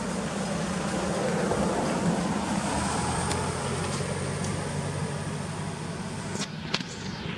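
Steady motor-vehicle engine noise, a low hum over a broad rumble that swells slightly in the first two seconds, with two sharp clicks near the end.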